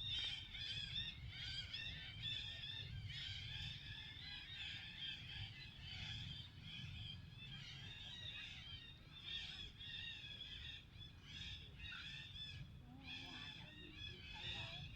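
Many birds chirping and chattering in an overlapping, unbroken chorus of short, high calls, over a low steady rumble.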